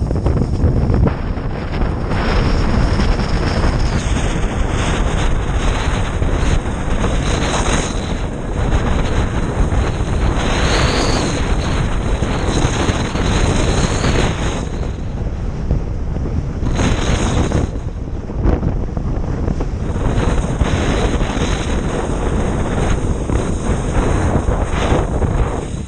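Strong wind buffeting the microphone, over the rush of water under a windsurf board planing across choppy water. The gusting eases briefly a little past the middle.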